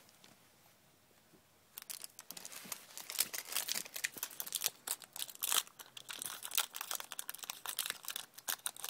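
Foil Yu-Gi-Oh booster pack wrapper crinkling and tearing as it is pulled open by hand, in a dense run of crackles that starts about two seconds in, after a short quiet stretch.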